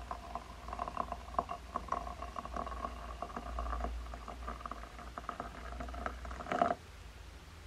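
Water poured in a thin stream into a glass teapot over loose tea leaves, splashing and bubbling with a steady ringing pitch from the glass; the pour stops suddenly near the end.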